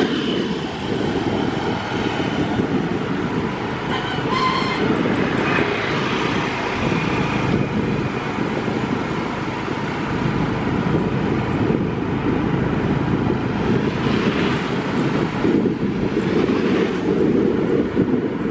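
Steady rush of wind on the microphone mixed with vehicle road noise, heard while travelling alongside the rail line as the battery tram runs past.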